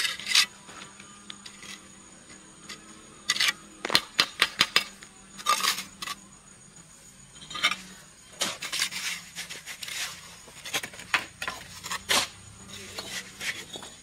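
Irregular sharp knocks and clinks, some in quick clusters, over a steady high insect buzz.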